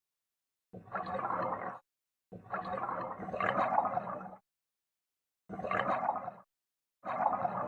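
Scuba divers' exhaled air bubbling out of their regulators underwater: gurgling bursts of a second or two with silent gaps between them, three in a row and a fourth starting near the end.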